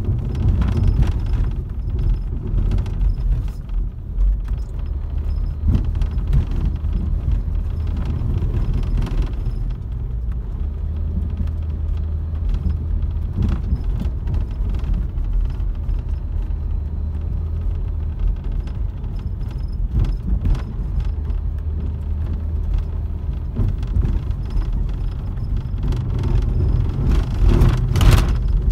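Inside a minivan's cabin driving on a rough dirt road: steady low engine and tyre rumble, with frequent knocks and rattles over bumps and a louder jolt near the end.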